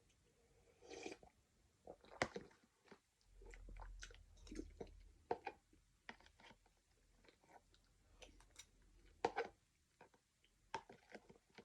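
Faint chewing and mouth sounds of someone eating chicken noodle soup, with many small scattered clicks. A low rumble runs for a couple of seconds about three seconds in.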